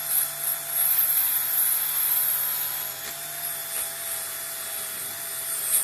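Small electric polishing tool running steadily, with a polishing wheel buffing a stripped die-cast toy part; the whine and hiss swell and ease as the piece is pressed on and moved.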